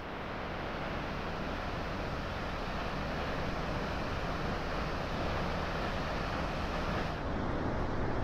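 Steady rushing noise of Vernal Fall's water crashing down into its spray. About seven seconds in, the hiss thins out to a duller rush.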